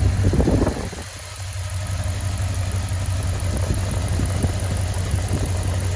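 1999 Dodge Ram 1500 engine idling steadily in neutral. About half a second in there is a brief rattle as the transmission dipstick is drawn from its tube.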